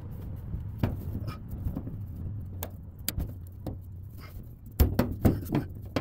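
Scattered clicks and knocks of hand tools and metal parts being worked under a car, with a cluster of louder knocks about five seconds in, over a low steady hum.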